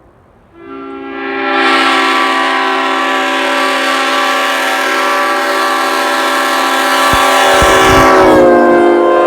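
Leslie five-chime air horn blowing one long, loud chord of several steady notes together. It starts about half a second in, holds steady, and its chord shifts slightly near the end, with a few low thumps just before.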